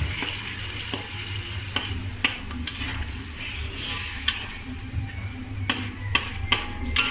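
A spatula stirring chicken in a tomato gravy in a pan over the flame, with a steady sizzle and irregular sharp clicks where the spatula knocks the pan.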